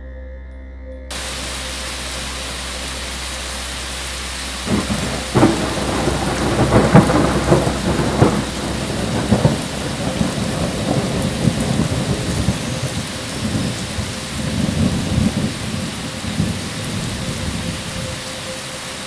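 Heavy rain starts about a second in and falls steadily. Thunder rolls in about five seconds in, loudest around seven seconds with sharp cracks, then rumbles on with a second swell later.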